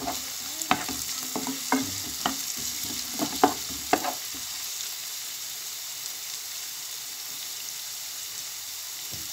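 Sliced onions sizzling steadily in a frying pan. A wooden spatula stirs and knocks against the pan in a series of sharp clicks over the first four seconds, after which only the steady sizzle remains.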